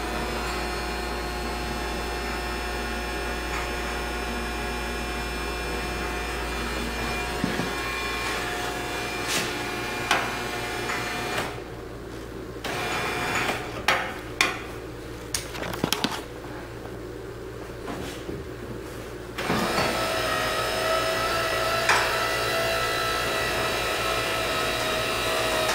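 KYB Mini-Motion electro-hydraulic actuator's electric pump motor running with a steady whine as it strokes the snow-plow tilt ram. It stops about 11 seconds in, with a few clicks during the gap, and starts again a few seconds before the end.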